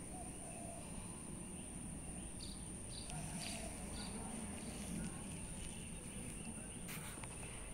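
Outdoor ambience: a steady high-pitched insect drone, with four quick high chirps about half a second apart in the middle and a single sharp click near the end.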